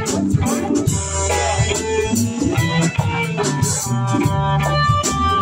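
Live band playing: electric guitar and bass over a drum kit, with conga drums.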